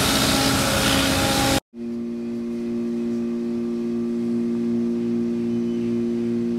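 Street sweeper running, a loud rushing noise over a steady engine note, cut off suddenly about one and a half seconds in. Then a quieter, steady elevator hum with two held tones.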